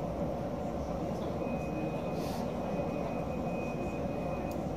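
Tram standing still: a steady low rumble, joined from about a second in by a thin, steady high-pitched whine that stops shortly before the end.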